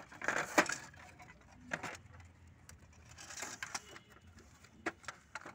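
Hard plastic clicks, knocks and scraping from an HP 5820 ink tank printer's housing parts being handled and pried apart, at irregular intervals, the loudest a sharp knock about half a second in.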